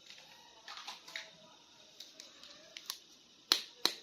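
Small plastic toy figures being handled: soft rustling and light ticks, then two sharp clicks near the end, about a third of a second apart.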